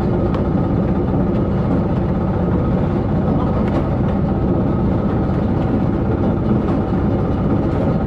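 Boat engine running steadily at a constant speed, a loud, even drone.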